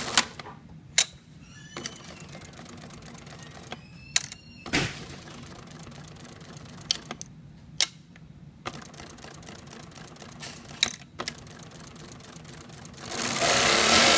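Brother B875 twin-needle industrial lockstitch machine: scattered sharp clicks as the small lever beside the split needle bar is worked by hand over a low steady hum. Near the end the machine sews a short, loud burst of about a second.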